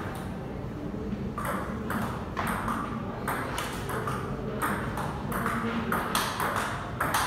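Table tennis rally: the celluloid ball clicking off the paddles and bouncing on the table, about two hits a second, starting about a second and a half in.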